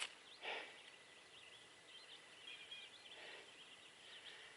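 Near silence with faint bird chirps, and a brief soft rustle about half a second in.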